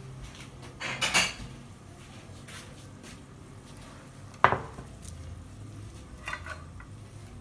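Crockery being handled: a short clatter about a second in, then one sharp clink of a ceramic plate with a brief ring at about four and a half seconds, the loudest sound, and a few light knocks later.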